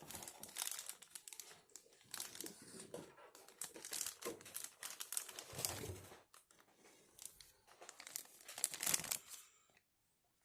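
Figure packaging being unwrapped: repeated crinkling and rustling, with some tearing. It stops about a second before the end.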